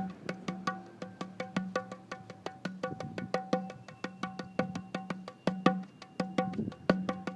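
Campfire crackling, with many sharp, irregular pops, over background music holding steady low notes.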